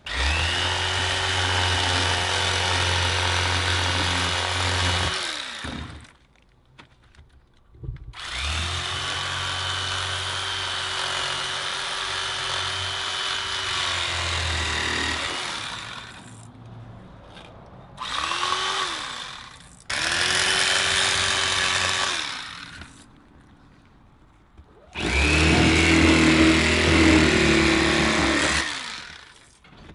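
Electric fillet knife running in five bursts of a few seconds each as it cuts fish fillets, its motor whine rising in pitch as each burst starts and falling away as it stops; the last burst is the loudest.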